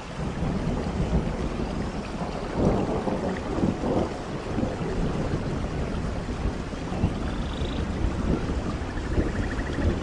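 Steady heavy rain with a low thunder rumble that swells about two and a half to four seconds in. A few faint bird chirps come in near the end.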